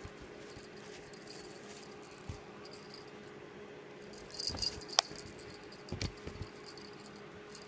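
Small kitten at play, making a few short light clicks and rattling knocks, the clearest about four and a half to five seconds in and again near six seconds, over a faint steady hum.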